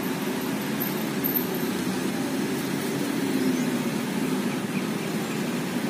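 Steady rumble of city road traffic, a low, even hum of passing engines with no single vehicle standing out.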